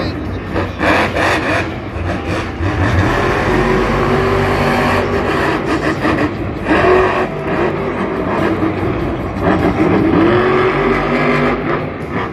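Monster truck engines revving loudly, their pitch rising and falling several times.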